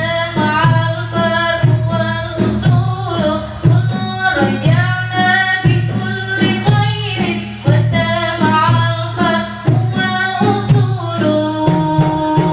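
A woman singing a melody over rebana frame drums beating a steady rhythm, with a few held notes near the end.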